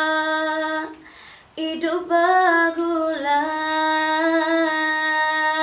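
A woman singing solo with no accompaniment heard. A long held note ends about a second in; after a short breath she starts a new phrase that moves up and down, then settles into another long, steady held note.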